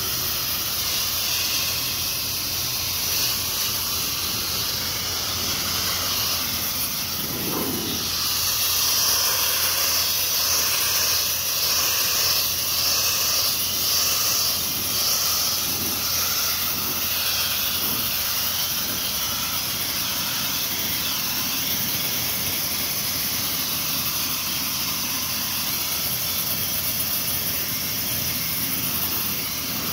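Sandblaster nozzle blasting abrasive onto a sheet-metal housing to strip old paint: a loud, steady hiss of compressed air and grit that swells a little for several seconds about a third of the way in.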